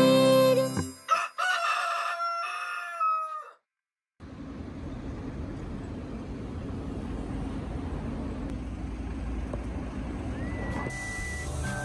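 A rooster crow sound effect closing a short jingle, held and then falling away, followed by a brief silence. Then steady city street noise with a low traffic rumble, and music comes in near the end.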